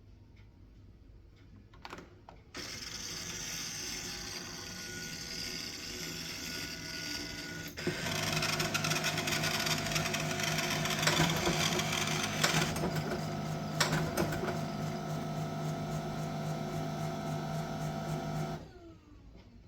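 HP LaserJet Pro MFP M1136 printer going through its start-up initialisation: a click, then its motors and mechanism run steadily, louder after about eight seconds, and stop suddenly near the end.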